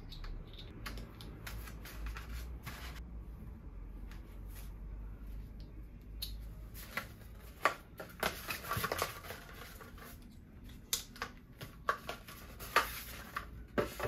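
Rustling, scattered clicks and light knocks as a bicycle helmet is handled: its chin-strap buckle is fastened, and later the hard shell is hung on a wall hook. The sharpest clicks come in the second half.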